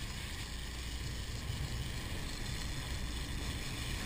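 Sportfishing boat's engines running steadily under way, a low rumble mixed with the rush of churning wake water.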